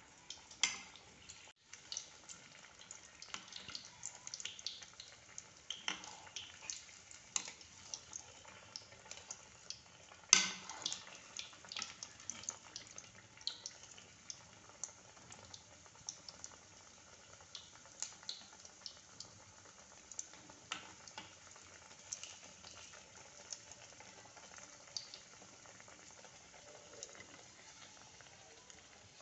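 Large steamed momo deep-frying in hot oil on a low flame: a faint sizzle with scattered irregular crackles and pops, one sharper and louder about ten seconds in.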